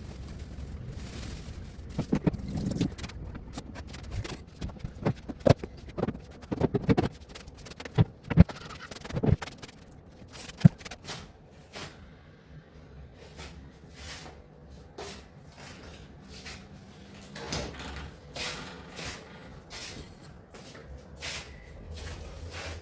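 Kitchen handling noises: a run of sharp knocks and clatter, as of containers, drawers or cupboard doors, thickest in the first half, then sparser taps.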